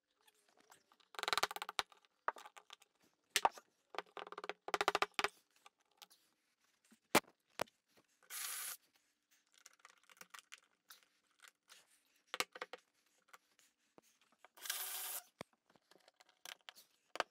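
Scattered clicks, scrapes and short rasping bursts of hand work at a drywall wall as hollow-wall anchors are pushed into drilled holes and set.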